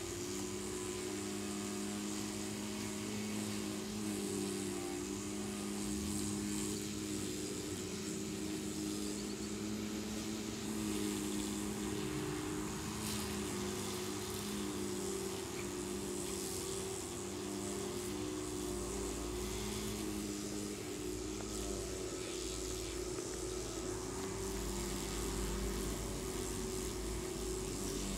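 A steady mechanical hum with a few held tones, from a motor or engine running in the background. A deep low rumble joins about two-thirds of the way in.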